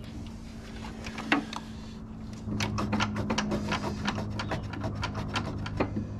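A cordless drill-driver backing screws out of the table saw's housing: a sharp click just over a second in, then from about halfway through a steady motor whir with rapid clicking.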